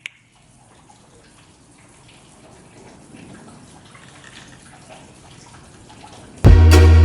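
Rain falling and dripping, a faint steady patter. Near the end, loud music with deep bass and a steady beat cuts in suddenly.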